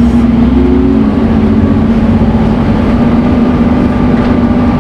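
Scania N230UD Omnicity double-decker bus's five-cylinder diesel engine running, with a steady hoover-like whine that dips briefly about a second in and then holds.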